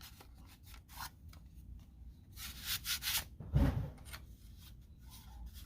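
Plastic parts of a car side-mirror turn-signal assembly rubbing and scraping together as the unit is lined up and fitted into the mirror housing, with a dull knock about three and a half seconds in.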